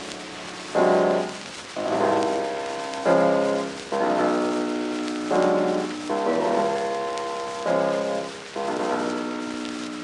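Closing music: chords struck about once a second, each starting sharply and fading before the next.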